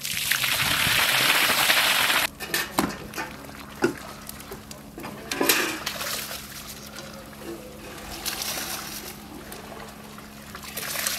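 A loud rush of liquid splashing into a large cooking cauldron, as soaked wheat and water are poured in from a metal basin; it lasts about two seconds and stops abruptly. Softer sloshing and a few knocks follow as the pot is stirred with a wooden paddle.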